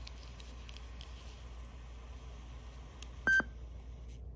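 Sony WM-EX610 Walkman giving one short, high electronic beep a little over three seconds in, its confirmation for a button press on its wired LCD remote as tape playback is started. Light clicks of the remote being handled come before it.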